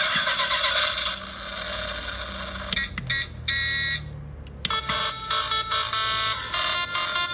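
Electronic sound effects from a toy crane truck's small speaker: an engine-like rumble, then, from a little before halfway, a run of beeping alarm-like tones.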